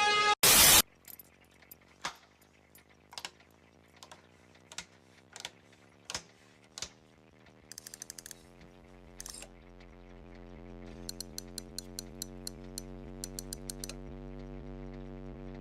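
A short loud burst of noise, then scattered sharp mechanical clicks and ticks over a low steady hum. The hum slowly grows louder, and quick regular ticks come in near the end.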